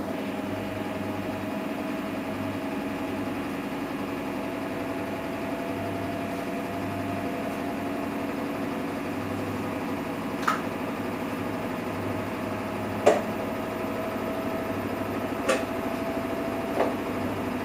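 Samsung Eco Bubble washing machine running a cotton wash: a steady motor hum with a low throb that cuts in and out. Four short sharp knocks come in the second half.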